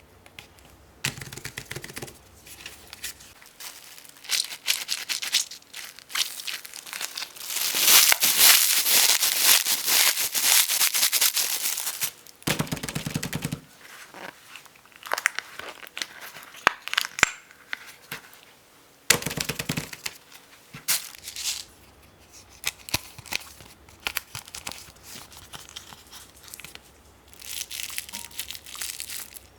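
Hands handling small plastic fidget toys and packaging: scattered clicks and crinkling, with a long, loud stretch of dense crinkling about a third of the way in.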